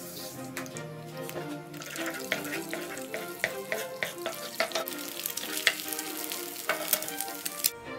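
Egg frying in a honeycomb-textured stainless steel pan, sizzling while a wooden spatula scrapes and chops it apart, with many quick scrapes and knocks from about two seconds in. Background music plays underneath.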